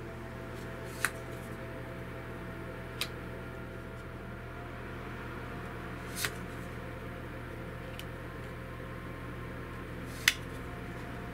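Tarot cards being handled: five short, sharp snaps a couple of seconds apart over a steady low hum and hiss.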